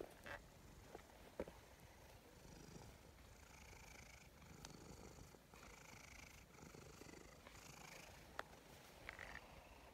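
Domestic cat purring faintly as it is stroked, in soft pulses about a second apart. A few sharp clicks stand out above it.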